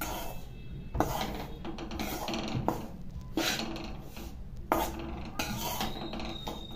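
Metal spatula scraping and stirring a dry, crumbly mix of roasted wheat flour and grated jaggery in a steel kadhai, in repeated strokes about once a second, while the jaggery has not yet melted.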